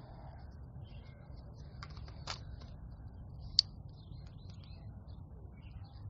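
Three sharp plastic clicks, the loudest about three and a half seconds in, from handling a DJI Spark drone while its battery is swapped.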